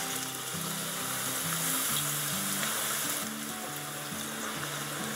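Thin raw potato slices frying in hot oil in a stainless steel pan: a loud, steady sizzle that sets in as the slices hit the oil. Soft acoustic guitar music plays underneath.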